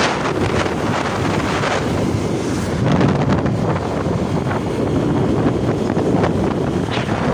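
Wind buffeting the microphone of a phone filming from a moving motorbike, with a loud, steady rushing noise throughout.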